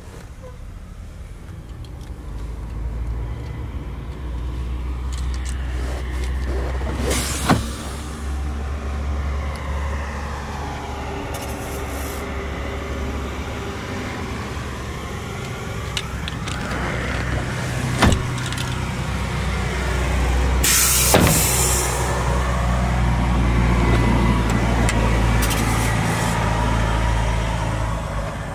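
A vehicle engine running with a steady low rumble that slowly swells and fades, its pitch drifting. Sharp clicks come about a quarter of the way in and again just past halfway, and a short hiss with a click comes about three-quarters through.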